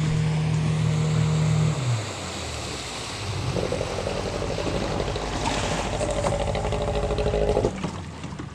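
Small tiller outboard motor on an aluminum fishing boat running steadily, then throttled back about two seconds in. It works at low revs with water churning under the stern as the boat comes alongside the dock, and the engine sound falls away near the end.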